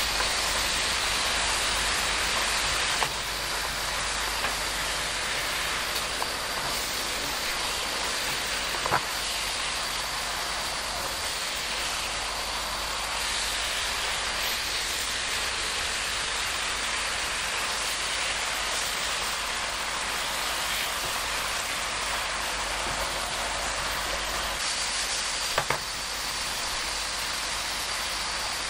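Spicy seasoning sauce sizzling and bubbling steadily in a nonstick frying pan around braising semi-dried pollack over medium heat as it reduces, with a couple of light clicks partway through.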